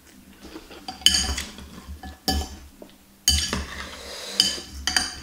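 Metal fork and spoon clinking and scraping against a glass bowl of meatball soup, about five sharp clinks with a brief ring after each.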